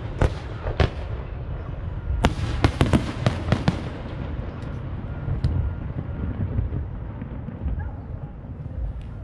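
Aerial firework shells bursting: two sharp bangs in the first second, a rapid cluster of about half a dozen bangs between two and four seconds in, then only a few faint cracks, all over a steady low rumble.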